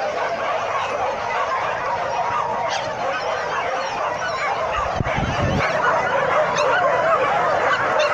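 A pack of many leashed hunting dogs yelping and whining together in a dense, continuous clamour, with a low thump about five seconds in.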